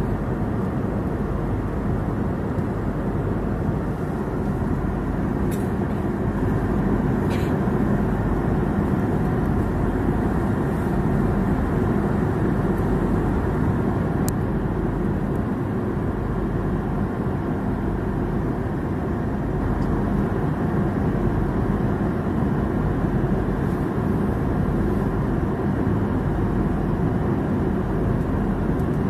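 Steady cabin noise of a jet airliner in flight: a constant low rush of engines and airflow heard from a window seat.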